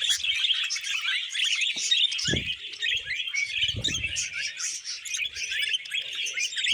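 Budgerigars warbling and chattering: a dense, unbroken stream of rapid chirps. A couple of low thumps come about two and four seconds in.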